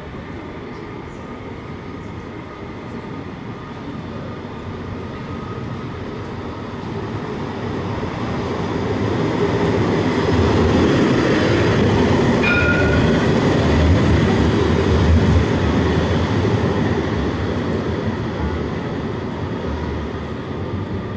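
Tram running along street track: the rolling rumble of wheels on rail and its drive grows louder to a peak in the middle as it comes close, then eases off. A brief high beep sounds about twelve seconds in.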